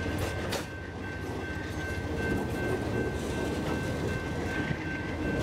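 Vintage passenger cars of an excursion train rolling past at speed, a steady rumble of wheels on rail with a couple of sharp wheel clicks over rail joints near the start. A thin steady high whine runs through it.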